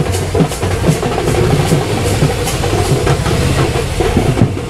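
Cruiser motorcycle's engine running at low revs, a steady low rumble, with scattered sharp clicks or knocks over it.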